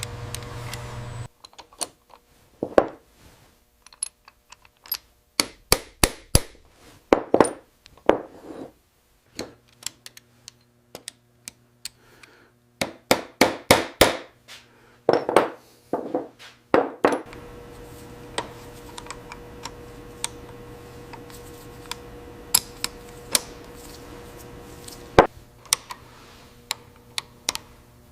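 Metal parts and hand tools being handled in a workshop: a run of sharp clicks, taps and knocks, some ringing briefly, coming in bursts. A steady machine hum stops about a second in and comes back a little past the middle, with single clicks over it.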